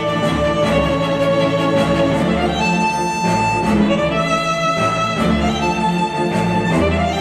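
Instrumental music with bowed strings over pulsing bass and a steady beat, played back through KEF Q350 bookshelf speakers driven by a NAD C316BEE V2 integrated amplifier.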